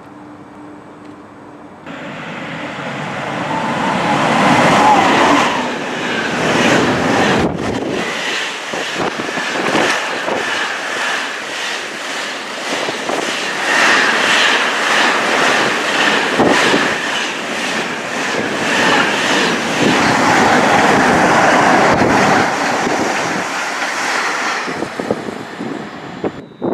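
Tesco container freight train hauled by a DRS Class 88 locomotive passing through the station at speed. The noise builds over the first few seconds, then the wagons rattle and their wheels click over the rail joints in a fast, even rhythm before it fades away near the end.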